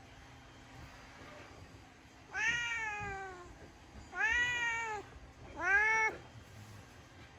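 Domestic cat meowing three times in drawn-out, complaining meows. The first is the longest and slides down in pitch; the next two rise and then fall. They are the cat's protests, made by a cat that dislikes the vacuum cleaner.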